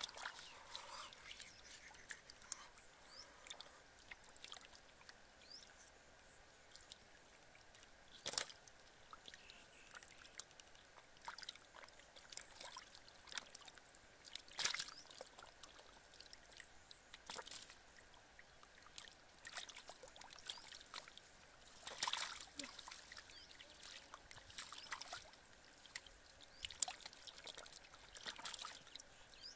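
Shallow muddy water splashing and trickling in short, scattered bursts as fish are grabbed by hand and flap in a drying pool.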